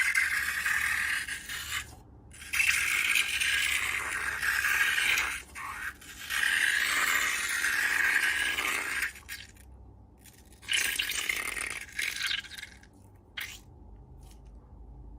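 Slime being scraped and stirred in several bursts of a few seconds each, with a sharp click at the very start.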